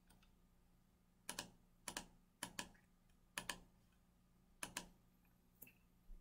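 Faint clicks of computer mouse and keyboard buttons: about six quick press-and-release double clicks, spaced roughly a second apart, over a low steady hum.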